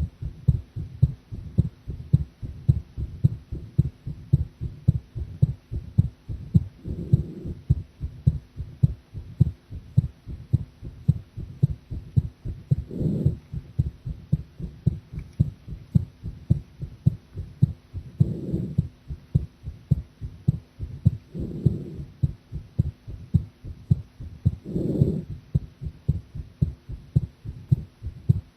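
A woman's heartbeat picked up against the chest, a steady run of regular low lub-dub beats. A few times it swells louder and fuller for about a second.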